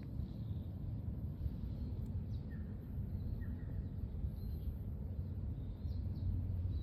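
Outdoor ambience: a steady low rumble with several short, falling bird chirps scattered through it.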